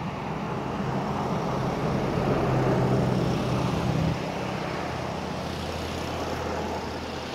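A motor vehicle's engine running close by, growing louder until about three seconds in and then dropping suddenly a second later to a lower steady drone.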